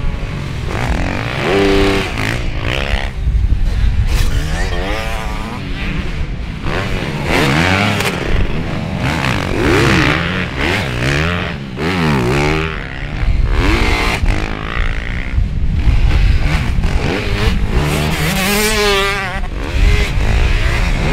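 Several motocross bikes coming over a jump one after another, their engines revving hard, the pitch swooping up and down as each rider opens and shuts the throttle, often two at once.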